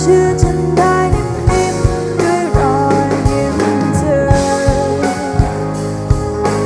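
Music: a song with a steady drum beat, guitar and singing, the melody sliding between notes.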